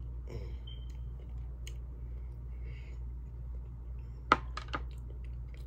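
Eyeglasses set down on a hard surface: one sharp click a little past four seconds in, followed by two or three lighter clicks, over a steady low hum.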